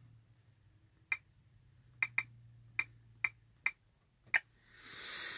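Short, sharp clicks at an uneven typing pace, about seven of them, as keys are pressed on a PeopleNet tablet's touchscreen keyboard to enter a driver ID and password. A brief rushing noise swells and fades near the end.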